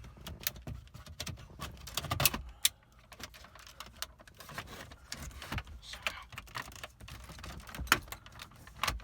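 Irregular clicks and knocks of plastic being handled and pressed as a dashboard switch and its trim panel are worked into place, with the sharpest clicks a couple of seconds in and again near the end.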